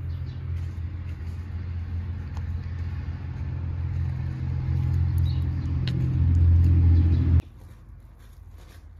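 Low, steady engine rumble of a motor vehicle, growing louder and then cutting off abruptly about seven seconds in.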